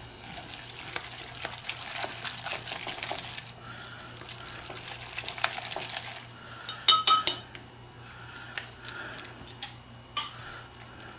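Wooden chopsticks stirring strained instant ramen noodles and seasoning powder in a ceramic bowl: dense stirring for about the first three and a half seconds, then lighter, with a few sharp knocks of the utensils against the bowl about seven seconds in and again near ten seconds.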